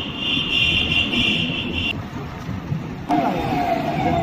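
Street traffic and road noise heard while riding through town. A high shrill warbling sound runs for about the first two seconds; about three seconds in the sound changes abruptly to louder traffic with a slightly falling tone.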